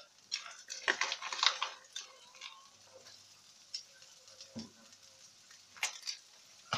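Leftover stir-fry vegetables frying in a wok of butter and spices, stirred, with a run of scraping and clicking in the first two seconds, then a few separate clicks over a light sizzle.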